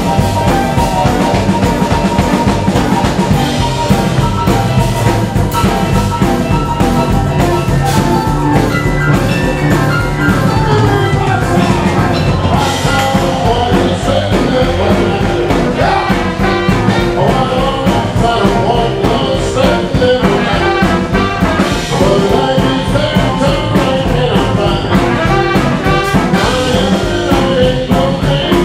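Live jump-blues band playing with a steady beat: horn section over electric guitar, keyboard, bass and drums.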